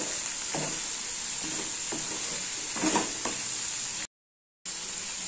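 Sliced bitter gourd, onion and tomato sizzling in a non-stick pan, stirred and scraped a few times with a wooden spatula. The sound cuts out for about half a second just after four seconds in.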